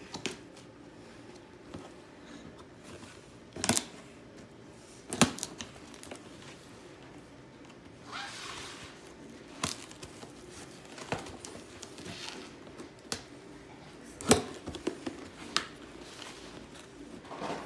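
Cardboard shipping box being opened by hand: packing tape slit and torn, cardboard flaps rustling and crinkling, with several sharp clicks and knocks and a longer tearing rasp about halfway through.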